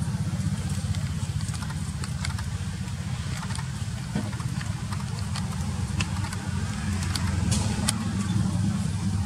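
A steady low rumble with faint scattered clicks; no cry from the baby monkey is heard.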